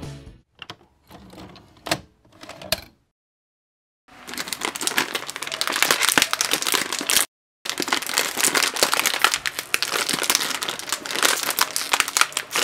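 Crinkly plastic wrapper being handled and picked open by hand. A few faint rustles and clicks come first, then a short pause, then dense, continuous crinkling from about four seconds in, broken once by a brief gap.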